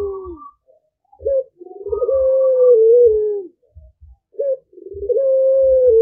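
Puter pelung (Barbary dove) cooing: a short note followed by a long, slightly falling coo, repeated about every three seconds.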